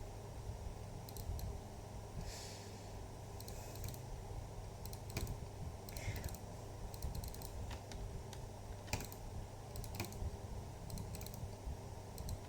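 Scattered clicks of computer keys and buttons at irregular intervals, over a steady low background hum.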